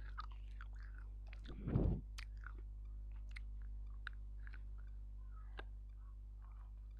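Close-miked biting and chewing of a piece of baked edible clay: a loud low thump about two seconds in, then scattered sharp crunches. A steady low electrical hum runs underneath.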